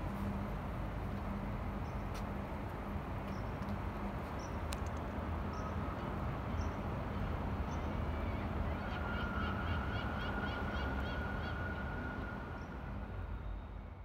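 Steady outdoor city hum at a dockside, with faint short high chirps, repeated quickly in the second half, and a faint steady tone. The sound fades out near the end.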